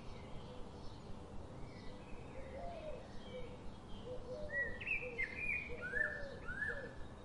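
Small birds chirping: many short rising and falling calls that come thicker in the second half, over a steady background hiss.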